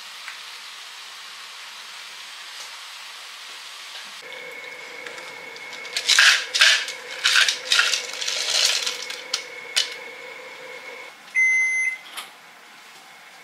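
Chopped okra tipped into a pan of hot liquid on a gas burner, with a run of loud crackling and splashing for about four seconds over a steady hiss and a faint whine. A short electronic beep sounds near the end.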